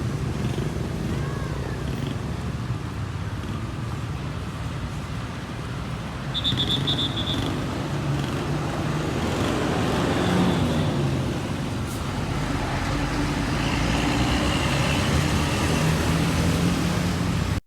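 Roadside traffic: engines and tyres of passing vehicles, swelling about ten seconds in and again near the end, with a brief high pulsing beep about six seconds in.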